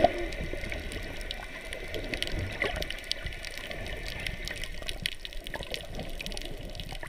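Water sound picked up by a camera under the sea: a steady muffled wash of moving water, with many small scattered clicks and crackles.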